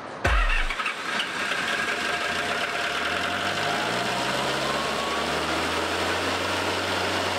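Bobcat skid-steer loader's engine running, picking up speed over a couple of seconds about a third of the way in and then holding a steady pace.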